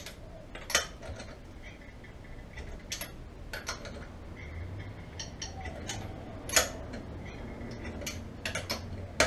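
Scattered sharp metallic clicks and clinks of a socket wrench on the wheel nuts as they are tightened, the loudest about six and a half seconds in.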